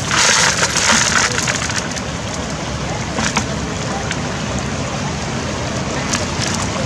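Floodwater rushing past with wind on the microphone; in about the first second and a half a louder splashing rush as water is shaken out of a green mesh fish trap into a plastic bucket, then a few light taps.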